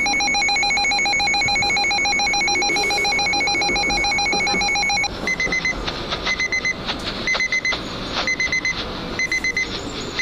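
Weather alert receiver sounding its warning alarm. For about five seconds it gives a fast-pulsing multi-pitched buzz, then switches to clusters of short high beeps about once a second, announcing a severe weather bulletin.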